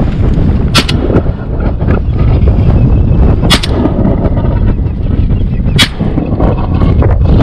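Three shotgun shots at ducks, roughly two and a half seconds apart, over heavy wind buffeting the microphone.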